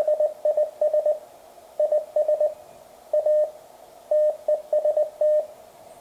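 Morse code at 20 words per minute spelling "THIS IS A TEST": a steady mid-pitched tone keyed on and off in dots and dashes, ending about five seconds in. It is the Mountain Topper CW transceiver's sidetone on a small speaker, keyed by logging software through a homemade transistor serial-port interface, which shows that the interface works.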